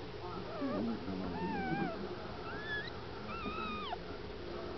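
Newborn miniature dachshund puppies crying: about four short, high-pitched squeaky cries that bend up and down in pitch.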